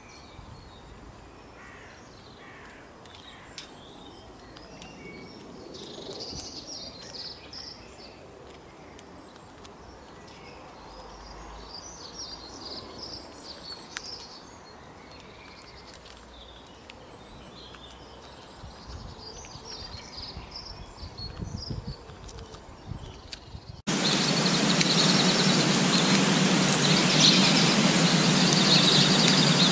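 Small birds chirping and calling over a faint outdoor background. About 24 seconds in, the sound cuts abruptly to a much louder steady noise with a low hum under it, and birds still chirp over it.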